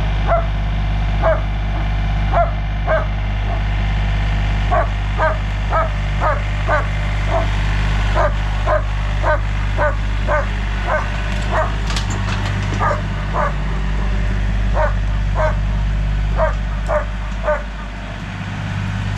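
A dog barking over and over, short sharp barks at about two a second with brief gaps, over a steady low hum.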